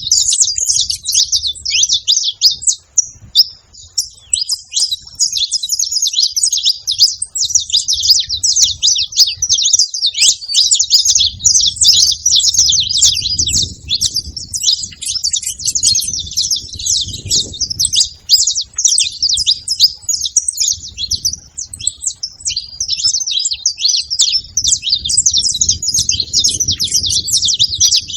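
Saffron finches, male and female, chattering nonstop in a dense run of rapid high chirps and trills. A faint low rumble comes and goes underneath.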